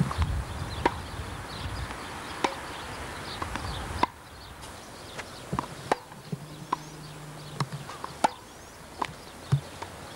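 Tennis rally: sharp pops of a tennis ball struck by rackets and bouncing on the court, coming irregularly about every half second to second and a half.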